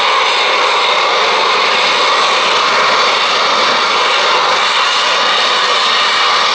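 F-35B's Pratt & Whitney F135 jet engine and shaft-driven lift fan at high thrust in a hover, exhaust nozzle swivelled down: a loud, steady rushing jet noise with strong hiss that does not change.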